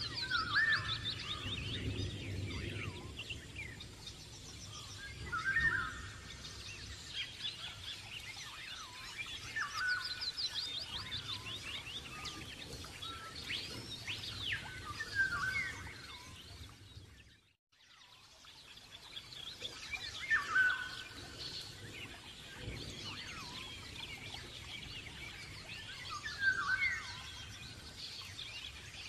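Songbirds chirping and trilling, with quick repeated chirp runs and short whistled phrases every few seconds. The birdsong cuts out briefly about halfway through, then starts up again.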